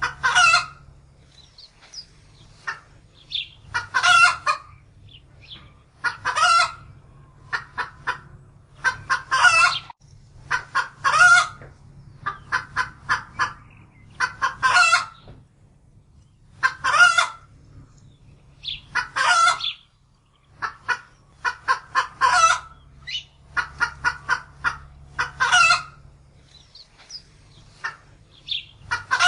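Chicken clucking in quick runs of short clucks, each run ending in a louder, drawn-out squawk, repeated every two to three seconds.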